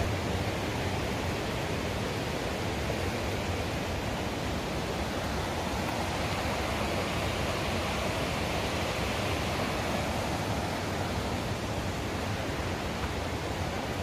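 Steady rush of a mountain creek running over rocks.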